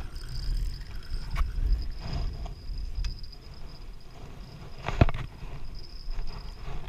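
Wind buffeting the microphone in a fluctuating low rumble, with a few sharp clicks or knocks; the loudest comes about five seconds in.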